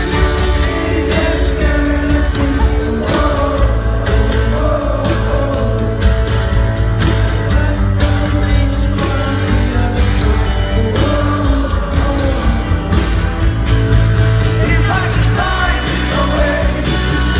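Live rock band playing a song in concert: a male lead singer over heavy bass and steady drums.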